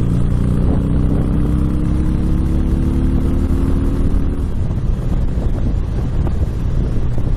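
Motorcycle engine running under way, its pitch rising slowly for about four seconds as it pulls, then the engine tone drops back under rushing wind and road noise on the microphone.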